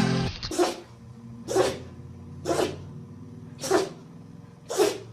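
Dog sneezing five times in a row, about once a second.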